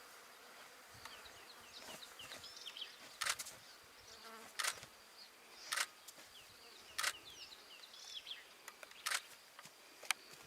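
Faint outdoor ambience: short buzzing bursts repeating about every second or so, with thin high chirps between them.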